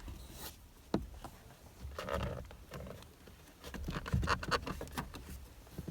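Flat-head screwdriver scraping and clicking against plastic and metal inside the back of a steering wheel while probing for the airbag's retaining spring clip: a sharp click about a second in, a short scrape near two seconds, and a quick run of clicks and scrapes around four seconds in.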